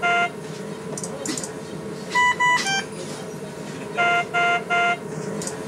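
Bedside patient monitor alarm beeping in repeating groups of short electronic tones: a group of two higher beeps and a lower one about two seconds in, then three even beeps at a lower pitch about four seconds in. A steady low hum of room and equipment noise runs underneath.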